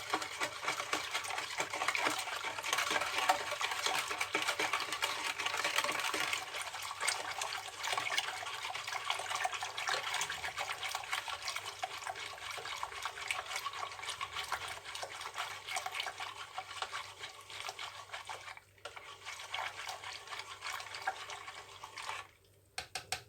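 Sugar being stirred into a pot of strained lemonade: liquid swishing, with small clicks of the spoon against the pot, pausing briefly near the end.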